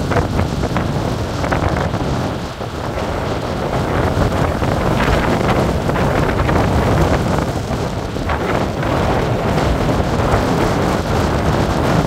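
Strong storm wind buffeting the microphone in gusts, over heavy surf breaking on a rocky shore and breakwater. The sound is loud and continuous, with a deep rumble from the wind on the microphone.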